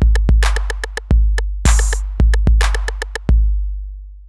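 Short electronic music outro: a drum-machine beat of deep kick drums with sharp snare-like hits between them, ending on one last kick whose boom fades away near the end.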